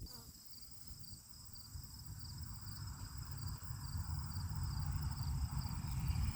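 Insects chirping in a steady, pulsing high chorus, with a low rumble that grows louder toward the end.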